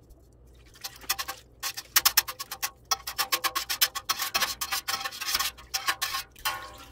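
Large stainless-steel balloon whisk driven quickly up and down through a pot of set milk curd to cut it into curds, making a fast run of scraping, ticking strokes. The strokes start about a second in and stop shortly before the end.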